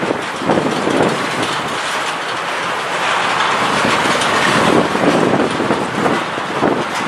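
Freight train wagons rolling past, wheels clattering over the rail joints in a steady run of clicks.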